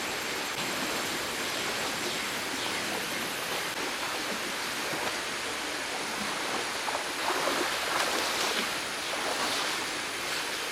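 Fast-flowing river water rushing steadily, a little louder and choppier about seven seconds in.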